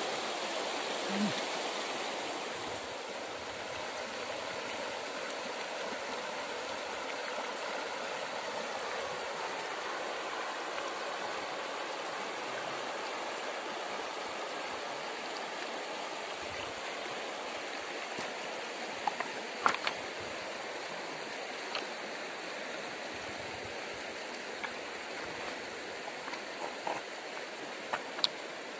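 Erang River running over shallow rapids and a pebble bed: a steady rushing of water. A few sharp clicks stand out about two-thirds of the way through and again near the end.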